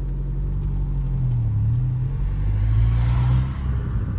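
Mini Cooper S R56's turbocharged 1.6 four-cylinder pulling under load, heard from inside the cabin, its note climbing for about three seconds. Then comes a short noisy rush, and the note falls as the throttle is lifted. The exhaust has been modified, cut and fitted with a plain tube.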